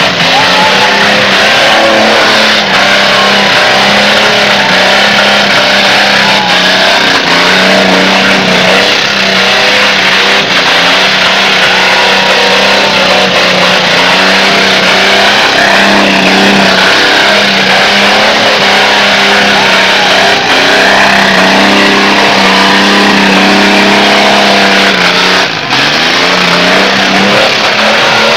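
Very loud car engine held at high revs while the car spins through doughnut manoeuvres, with tyres screeching over it; the engine note drops briefly about 25 seconds in and then picks up again.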